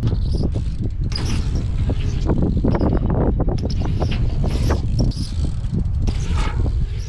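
Strong wind buffeting the microphone with a heavy low rumble, over a BMX bike's tyres rolling on the skate park ramp and scattered knocks and rattles from the bike.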